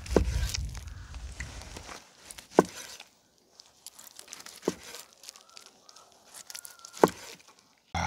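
Boiled pork front-leg meat being cut on a cutting board: four sharp knocks about two seconds apart, with soft tearing and scraping sounds between them. A low rumble runs through the first two seconds.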